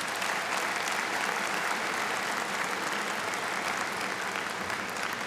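A large seated audience applauding: dense, steady clapping that eases a little toward the end.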